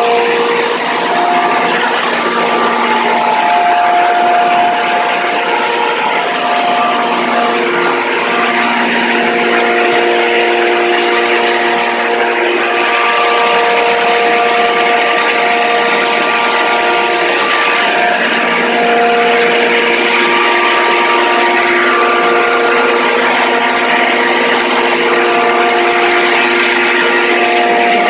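Paddy threshing and cleaning machine running steadily: a loud, continuous whirring drone over a hiss, with several steady tones that come and go.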